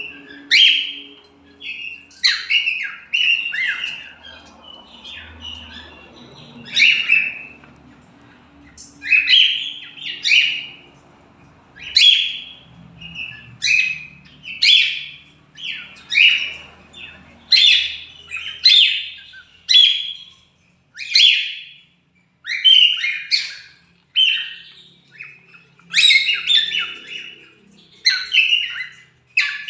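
Cockatiels calling over and over: loud, sharp chirps that fall in pitch, about one a second, some in quick pairs.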